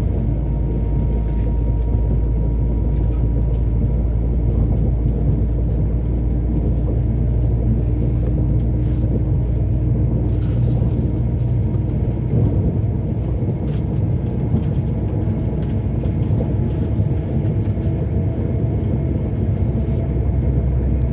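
Train running along the track: a steady low rumble with a faint whine and occasional light clicks.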